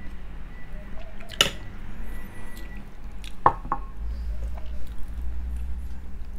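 Eating and handling food at a table: a sharp click of a dish or utensil about a second and a half in and a short squeaky sound around three and a half seconds in, over a low steady hum.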